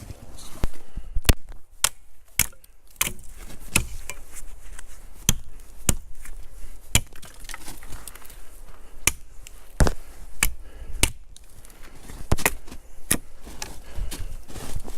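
Wood being chopped: repeated sharp strikes into wood, irregular, about one or two a second.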